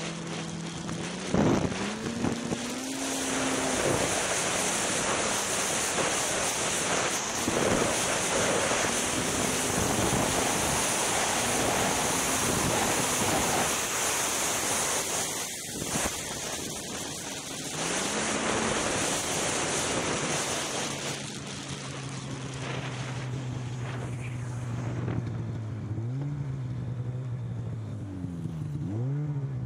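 Polaris Rush Pro-R snowmobile's two-stroke engine under way: revving up near the start, then running at speed under heavy wind and track noise, and easing off to a lower steady run with brief throttle blips near the end.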